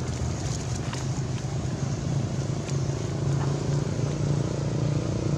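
Steady low engine drone, with a few faint ticks over it.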